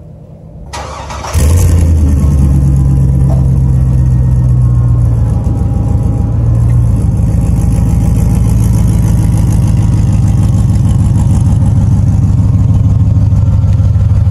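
GMC S-15 pickup engine cranking briefly and catching about a second and a half in, then running at a faster idle that settles lower a few seconds later and holds a steady low exhaust note.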